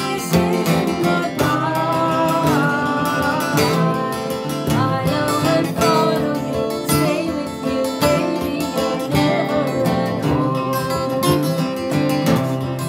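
Acoustic guitars strummed together with other plucked stringed instruments playing a folk tune, coming in abruptly at the start.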